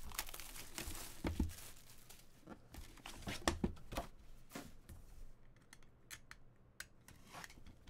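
Trading card box being opened: plastic wrapping torn and crinkled, with rustles and scattered small clicks, busier in the first half and sparser near the end.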